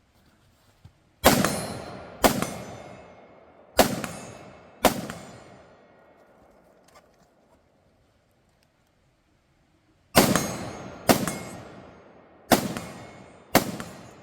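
Eight rifle shots from a SIG MCX Spear LT in 5.56, fired as four pairs about a second apart, with a pause of about five seconds after the second pair. Each shot is followed by a long fading echo.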